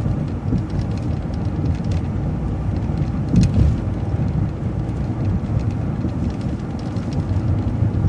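City bus running along the road: a steady low engine and road rumble, with a brief louder bump about three and a half seconds in.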